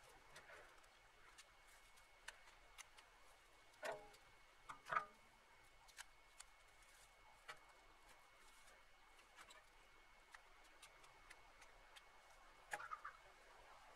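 Faint scattered snaps and crackles of dry brush and dead branches being pulled from a pile by hand, with louder crackles about four and five seconds in and again near the end. A faint steady high tone runs underneath.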